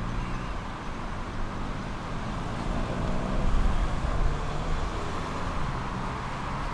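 Tram running along its line: a steady rumble of wheels on rails with a low traction-motor hum that shifts slightly in pitch.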